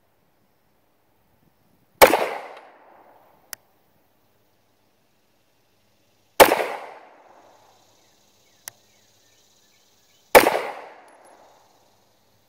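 Glock 45 9mm pistol firing three slow, deliberate shots about four seconds apart, each a sharp crack that rings out for about a second. A short, faint tick follows each shot a second or two later.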